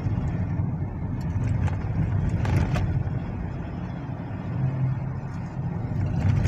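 A car's engine and tyres giving a steady low rumble, heard from inside the cabin while driving.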